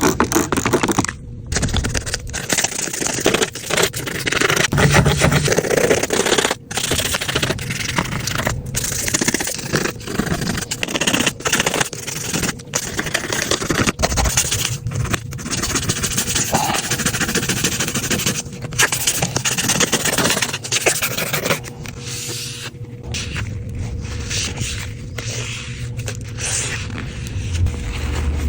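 Grime being scraped and scrubbed off a dirty iPad, a continuous rough scraping broken by several brief gaps.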